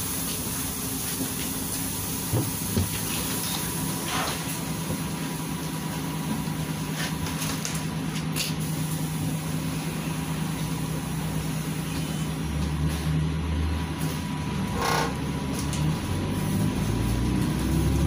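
Inside the cabin of a LiAZ 5292.67 city bus with a YaMZ-53624 engine and a ZF automatic gearbox: a steady engine hum and road noise while the bus drives along. A few faint rattles come through early on. Near the end the engine note rises as the bus speeds up.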